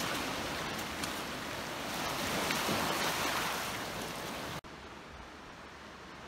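Small sea waves breaking and washing over rocks at the water's edge: a steady hiss of surf that swells a little and eases. About four and a half seconds in it cuts off abruptly to a much quieter, steady hiss.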